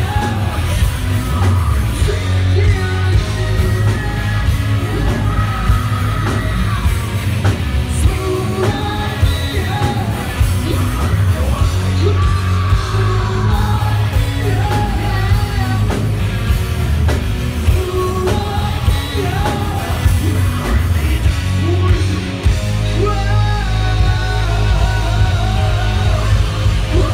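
Live rock band playing loud: a lead singer singing and yelling into a microphone over electric guitar, drums and keyboards, with a heavy bass-laden low end.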